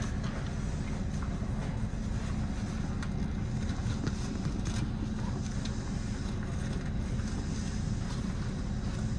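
Tobu 6050 series electric train running, heard from inside at the front of the car: a steady low rumble with scattered faint clicks.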